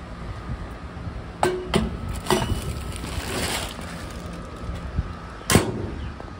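Metal parcel locker door being handled: a few metallic clanks with a short ring, then rustling of a plastic mailer bag. A single loud bang follows about five and a half seconds in.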